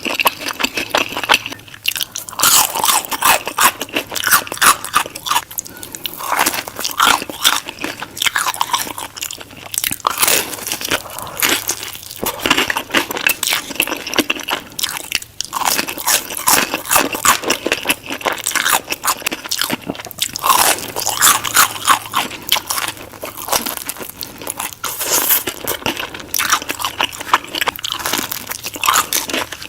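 Close-miked crunching bites and chewing of crispy fried chicken: quick runs of sharp crunches with short pauses between mouthfuls.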